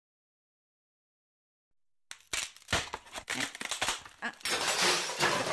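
Silence for about two seconds, then a run of quick clicks and crinkling of wrapping paper and cardboard as a wrapped gift box is moved, growing denser toward the end.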